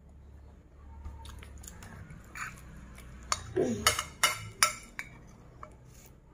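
A metal spoon clinking and scraping against a dish of fried rice, with several sharp clinks bunched together between about three and five seconds in.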